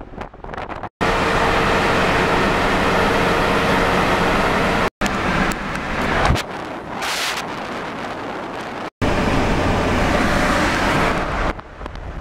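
Road and wind noise of a car driving, heard from inside the car as a steady rushing with a low rumble. It is broken by three abrupt cuts.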